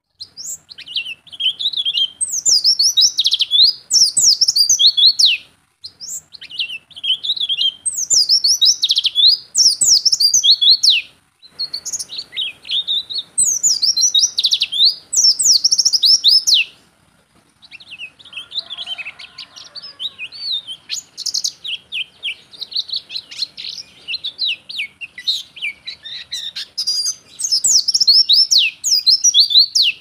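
Caged white-eye (pleci) singing vigorously in long runs of rapid, high-pitched chirping twitters, broken by brief pauses every few seconds.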